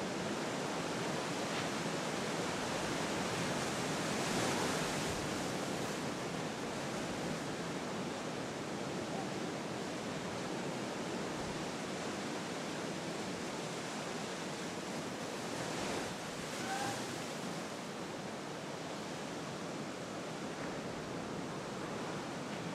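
Ocean surf: a steady wash of breaking waves, swelling a little about four seconds in and again about sixteen seconds in.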